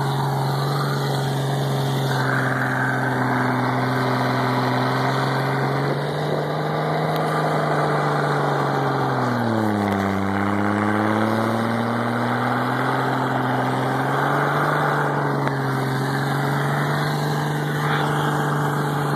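Snowcat engine running steadily while the machine is under way; about halfway through its pitch drops over a second or so, then climbs back to where it was.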